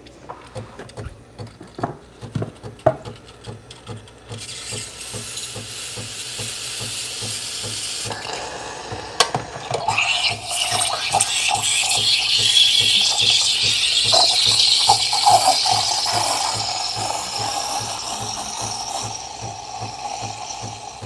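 A few clicks and knocks, then about four seconds in the Breville Barista Pro's steam wand starts hissing. From about ten seconds in it hisses louder as it steams milk in a stainless pitcher, easing slightly near the end.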